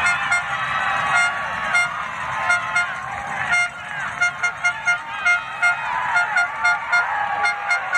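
Short horn blasts repeated on a single pitch, sparse at first and then coming about three a second from about halfway through, over shouting voices from the stands.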